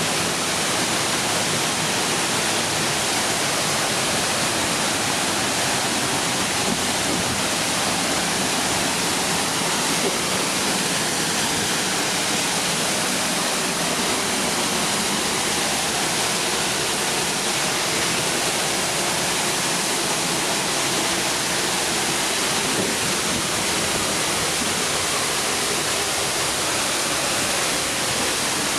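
Jion Falls waterfall: water falling and crashing in a steady, loud, continuous rush.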